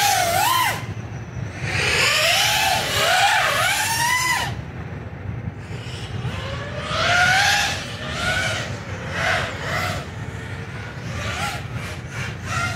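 ARRIS Chameleon 220 5-inch racing quadcopter flying, its 2306 brushless motors whining. The pitch rises and falls with each throttle change, and twice the whine drops away briefly. They run smoothly, with no odd vibration to be heard.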